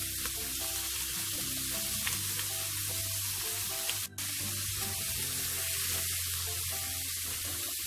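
Slices of salted pork belly sizzling as they fry in hot oil in a wok, stirred about with chopsticks, over soft background music. The sound breaks off for an instant about four seconds in.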